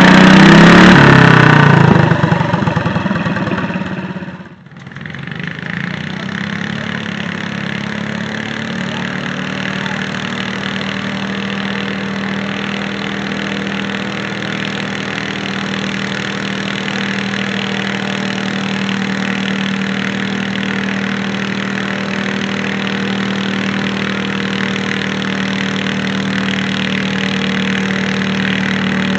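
A garden pulling tractor's engine running hard at the start, its speed stepping down and fading over the first couple of seconds as it throttles back at the end of a pull. After a short break about four to five seconds in, a garden tractor engine runs steadily at one constant speed.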